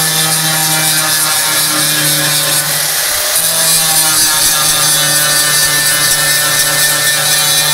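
Electric angle grinder with an abrasive wheel running at full speed and grinding into sheet steel: a steady motor whine under a harsh grinding hiss, the pitch sagging slightly now and then as the wheel bears on the metal. It is grinding a spot weld down until it is weak enough for the panel to come off.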